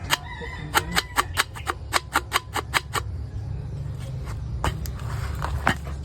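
Ford Ranger 3.2 five-cylinder diesel running with a rapid tuk-tuk knocking, about four to five knocks a second, which stops about three seconds in. The engine hum then goes on steadily, with a couple of single knocks near the end. The owner puts the noise down to a flexplate problem.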